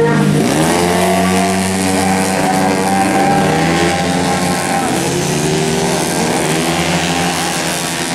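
Engines of tuned 150cc racing automatic scooters running hard on a circuit: the pitch dips at the start, then climbs in several long rising sweeps as they accelerate out of the corners.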